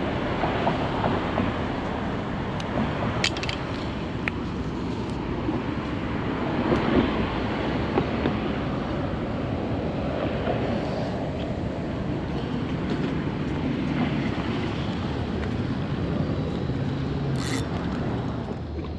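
Steady outdoor rumble of passing vehicles mixed with wind on the microphone, with a couple of faint clicks.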